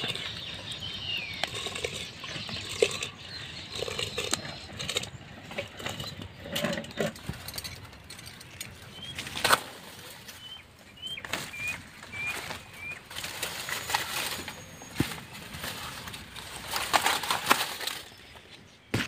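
Dry and green banana leaves rustling and crackling as they are pulled and torn from a banana plant, loudest near the end. A few short high bird chirps come in midway.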